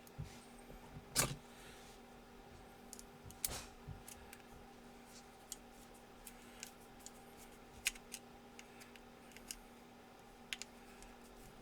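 Scattered small clicks and light knocks of steel revolver parts being handled as the loading-gate spring of an M1895 Nagant revolver is fitted. The loudest knock comes about a second in and another about three and a half seconds in, over a faint steady hum.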